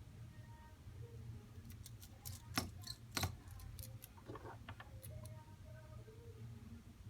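A cluster of small, sharp clicks and taps over about three seconds, the loudest two about half a second apart: small metal connector cover plates being set back in place on a phone's logic board with hand tools.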